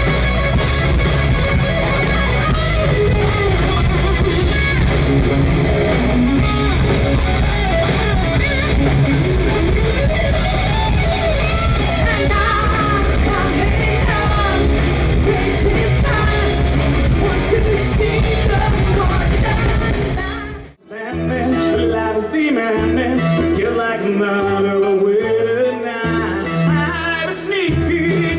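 Live rock band playing: electric guitar and drums, with a woman singing. About two-thirds of the way through, the music cuts off abruptly and a different, cleaner music track begins.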